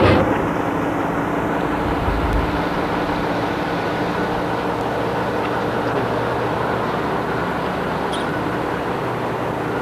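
Ikarus coach's diesel engine idling: a steady, even hum with no change in speed.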